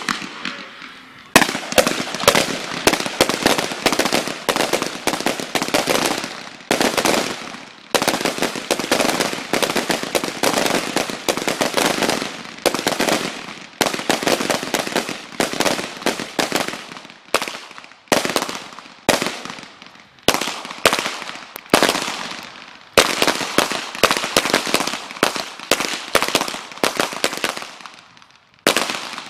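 Rapid, overlapping gunfire from a line of several shooters firing carbines and then handguns, shot after shot with short echoes. A brief lull about a second in, then nearly continuous firing with short pauses between strings.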